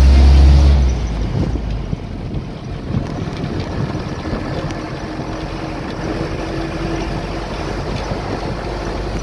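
Road noise and wind buffeting the microphone from a moving car. The car's steady low cabin drone gives way about a second in to uneven wind rumble.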